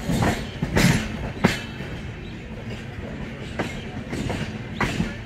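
LHB passenger coach wheels clattering over rail joints and points as the train pulls into a station, heard from a coach window: irregular sharp clacks over a steady rumble of the wheels on the rails, the loudest about a second in and again near the end.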